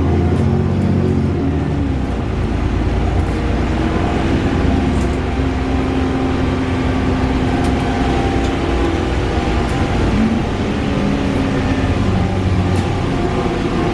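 VDL DB300 double-decker bus with Wright Gemini 2 body running, its engine drone joined by a loud whirring, with the pitch shifting around ten seconds in.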